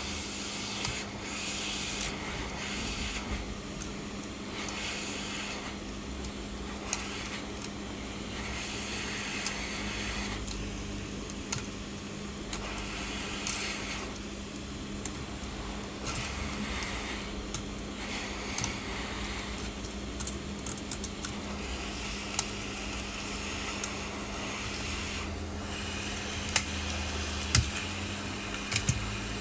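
Metal blade scraping and prying broken back glass off an iPhone 11 in repeated short hissy strokes, with scattered small clicks and clinks of glass fragments and tools, over a steady low hum.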